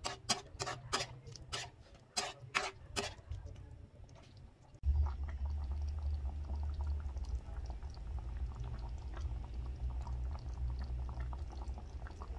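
A metal ladle clinks and taps against the wok as sweet and sour sauce is stirred, with a dozen or so sharp clicks over about three seconds. Then a steady low hum sets in, with faint crackling as the sauce simmers in the pan.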